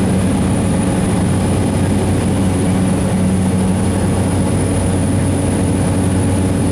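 Engine and propeller of a light high-wing airplane running steadily at climb power, heard from inside the cabin just after takeoff: a constant low drone with a thin high whine above it.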